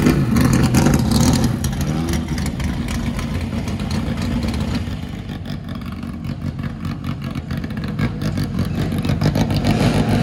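An AMC AMX race car's V8 rumbling close by and revving as it pulls away, dying down by the middle. About nine seconds in, another car's engine rises and revs as it comes up.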